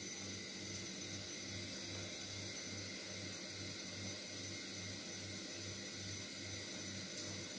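Thin stream of tap water running steadily into a kitchen sink, a soft even hiss.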